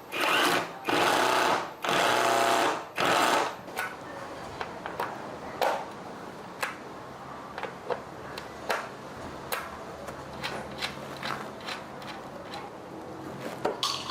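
A small electric motor run in four short bursts, one after another over the first few seconds, followed by scattered light clicks and taps.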